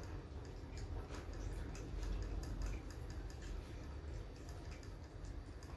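Two people eating rice and chickpea curry by hand: irregular small clicks and smacks of chewing and fingers working the food on the plates, over a low steady hum.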